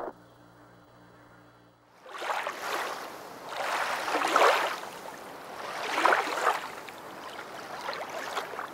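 A faint steady hum for about two seconds, then ocean waves washing, swelling and falling about every two seconds.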